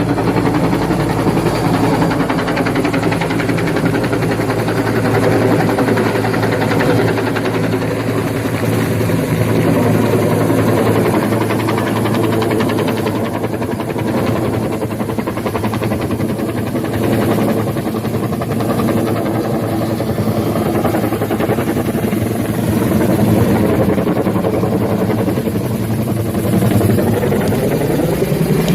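Bell 212 twin-turbine helicopter running at close range: a loud, steady beating drone from the rotor and engines, its pitch shifting near the end.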